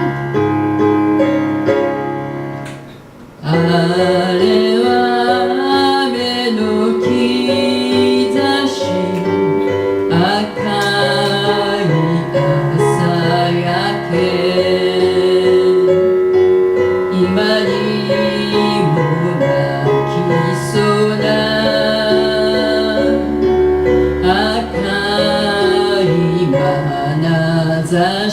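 Piano and a singing voice performing a ballad. The music drops away briefly about three seconds in, then the piano comes back in.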